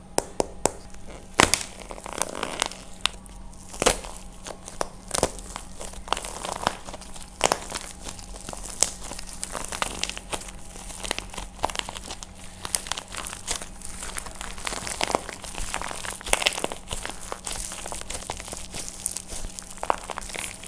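Dried plaster clay being cracked and crushed by hand: a dense, irregular run of sharp cracks and crunches, with a few louder snaps in the first few seconds.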